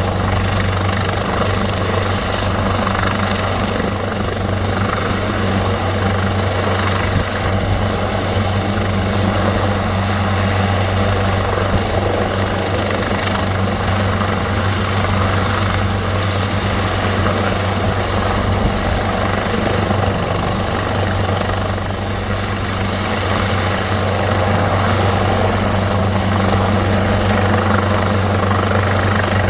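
Police helicopter running steadily, its rotor giving a constant low thrum and its turbine a steady high whine.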